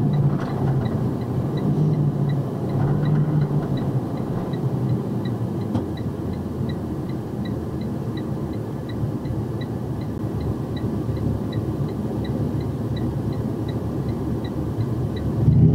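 Box truck cab noise, engine and road rumble, as the truck slows to a stop, with a turn-signal flasher ticking evenly about three times a second from about a second in.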